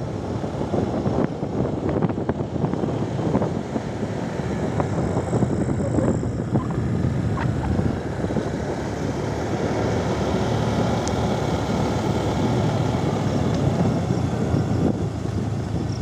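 Motorcycle riding at low speed on a rough gravel road: a steady engine and road rumble mixed with wind noise, with a few short knocks and rattles along the way.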